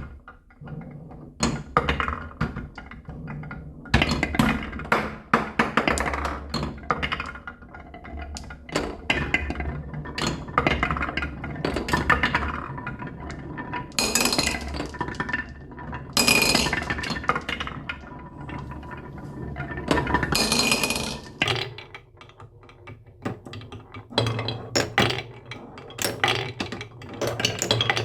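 Marbles rolling and clacking down a wooden marble-run track, many sharp clicks and knocks, with louder rattling runs a few times.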